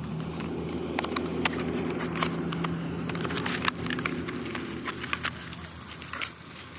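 A vehicle engine idling with a steady low hum, overlaid by scattered sharp clicks and crackles, a few each second.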